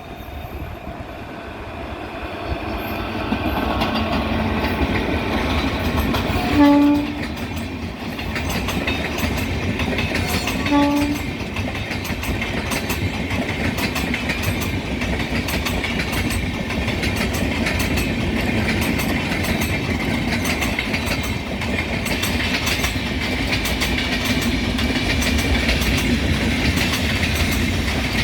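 WAP-4 electric locomotive hauling an express train comes closer and sounds two short horn blasts about four seconds apart, then the train passes with a steady rush and clickety-clack of wheels over rail joints.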